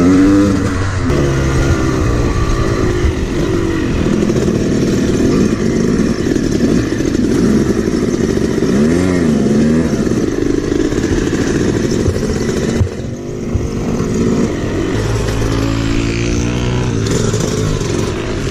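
Yamaha YZ250 dirt bike engine on board, revving up and down repeatedly as the bike is ridden hard around a motocross track. About two-thirds of the way through the throttle drops off, and the engine settles into steadier, lower running as the bike slows near the end.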